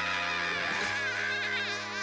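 Background music of held low notes that shift to a new chord about halfway through, under a wavering high melody line.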